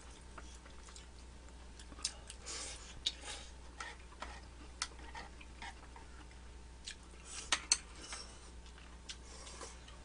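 Eating sounds: scattered sharp clicks of chopsticks against dishes, with soft chewing and short slurps of glass noodles from bulgogi hotpot. The loudest are two clicks close together about three quarters of the way through.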